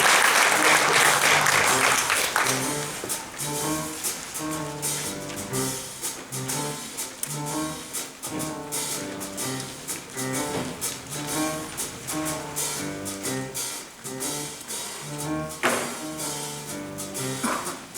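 Audience applause dying away over the first couple of seconds, then instrumental stage music: a repeating bass line under short, separate melody notes.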